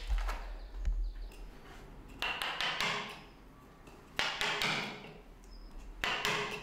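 Hand chisel cutting into a wooden statue: three scraping strokes about a second long, each starting sharply, after a couple of light knocks in the first second.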